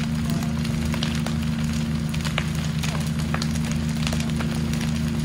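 Building fire crackling, with irregular sharp snaps and pops over a steady low hum.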